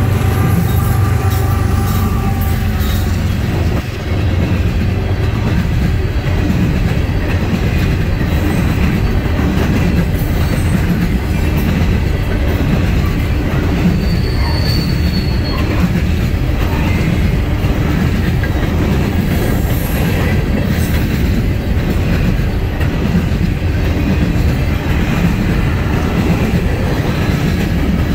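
Empty coal hopper cars rolling past close by: a steady rumble and clatter of steel wheels on rail, with a short wheel squeal about halfway through. For the first few seconds the diesel engines of two mid-train Norfolk Southern locomotives (distributed power units) are heard going by.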